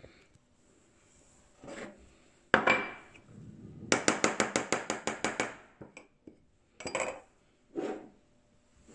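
Kitchen clatter of dishes and a spoon on a wooden table. A sharp knock comes first, then a quick run of about a dozen clinks over a second and a half, then two more knocks near the end.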